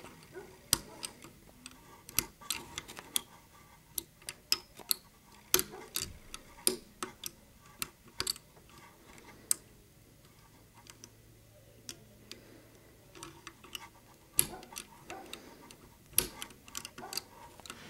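Irregular small metallic clicks and taps of a steel lock pick working the levers inside an Ilco seven-lever safe-door lock held under light tension.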